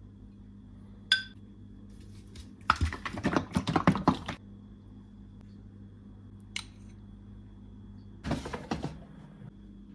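Utensils and dishes handled: a single ringing clink, then about a second and a half of clattering and scraping, a light tick, and a shorter clatter near the end.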